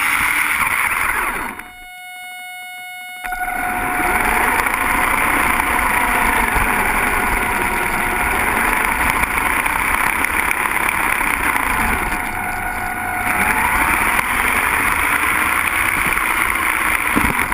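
Small radio-controlled car driving, heard from a camera mounted on its body: a steady high motor whine over rough rattling tyre and chassis noise. About two seconds in, the rattle drops away for a second and a half, leaving only the thin whine, and then comes back.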